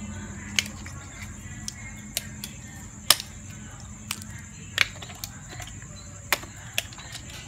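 Cooked mussel shells clicking sharply as they are pried apart by hand and dropped onto other shells in a metal pot, about seven separate clicks, the loudest about three seconds in, over a steady low hum.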